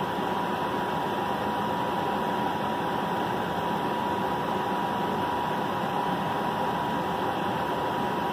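Steady mechanical whir with a constant high whine running through it, like a fan or air-conditioning unit running.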